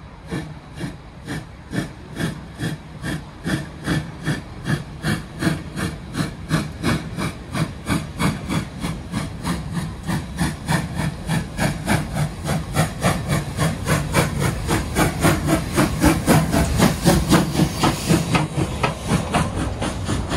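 Steam locomotive pulling away from a station, its exhaust chuffing in an even beat that quickens from about two to about four beats a second and grows louder as it comes up and passes close by near the end.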